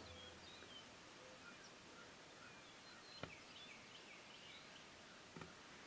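Near silence: faint outdoor ambience with a scatter of faint high bird chirps and a soft click about three seconds in.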